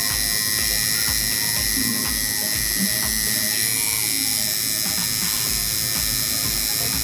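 Electric tattoo machine buzzing steadily while shading, under background music with a regular beat.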